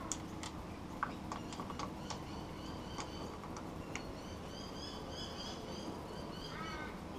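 Light clicks and taps of hand-handling a compression tester and its fittings at the outboard's spark plug holes, several sharp ones in the first few seconds. From about halfway, birds chirp in short repeated high calls in the background.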